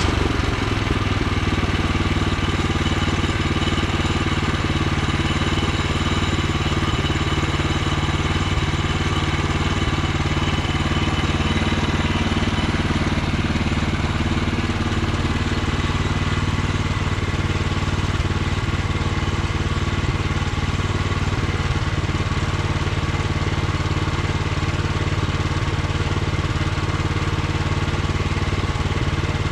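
Small gasoline engine of a Woodland Mills HM126 portable bandsaw mill running steadily at a constant speed.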